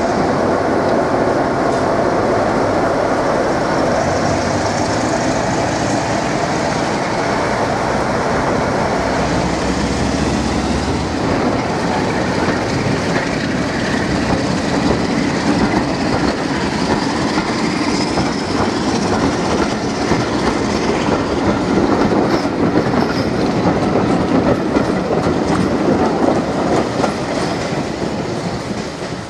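Class 47 diesel locomotive pulling away under power close by, its Sulzer twelve-cylinder engine running, followed by its train of coaches clattering over the rail joints. The sound fades near the end as the train draws away.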